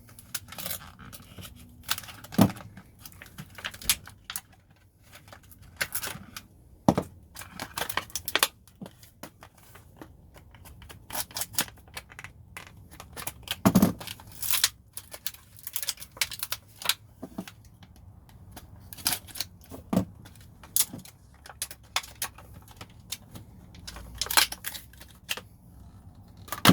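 Utility knife cutting and tearing open a new screwdriver's retail packaging, with a string of irregular clicks, snaps and scrapes of plastic and of the tool being handled.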